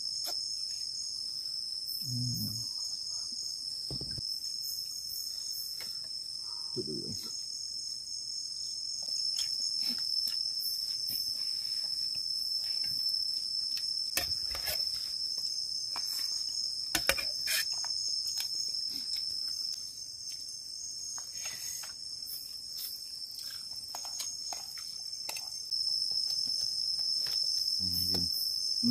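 Steady, high-pitched chorus of insects, crickets by its kind, with occasional soft clicks and knocks.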